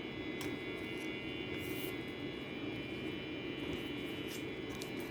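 Steady background hum, like a fan or air conditioner running, with a few faint soft clicks and rustles.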